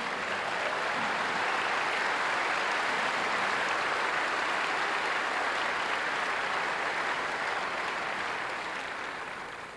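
A large audience applauding, a steady wash of clapping that fades away near the end.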